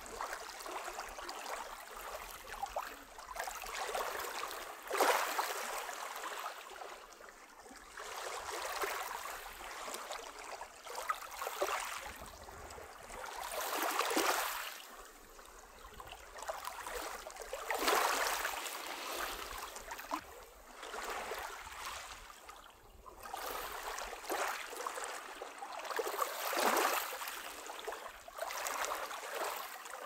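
Small waves of a calm sea lapping onto a pebble beach, washing in soft surges that swell and fade every three or four seconds.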